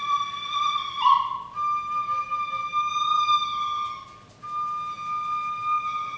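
Flute holding long, steady high notes, with a short downward slide about a second in and a brief break around four seconds in.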